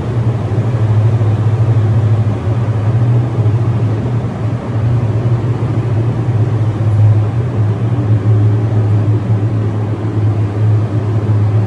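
Steady low machine hum with a rushing of air over it: a paint spray booth's ventilation system running.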